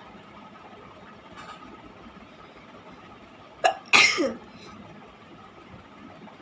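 A woman sneezing once, a little past halfway: a quick sharp catch of breath, then the loud sneeze, its voiced tail falling in pitch.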